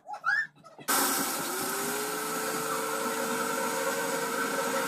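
Countertop blender blending a smoothie: it switches on suddenly about a second in, its motor pitch rises briefly, and then it runs steadily.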